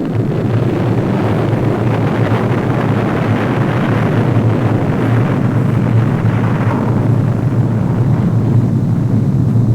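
A loud, steady low rumble with a hiss over it, without pitch glides or breaks.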